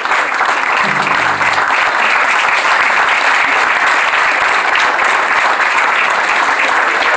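Audience applauding steadily in a small room.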